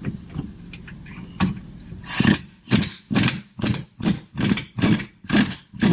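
Wrench working a 17 mm rear suspension arm bolt loose: a few light tool clicks and knocks, then from about two seconds in a steady run of short ratcheting bursts, about two to three a second, as the tool is swung back and forth on the bolt.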